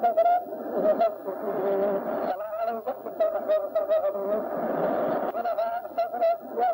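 A voice speaking continuously in a sing-song, chant-like delivery, with several drawn-out held notes.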